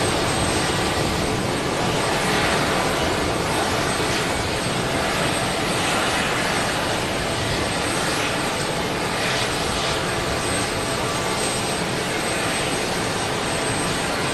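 Aircraft turbine engines running steadily: a loud, even rush of noise with a thin, steady high whine.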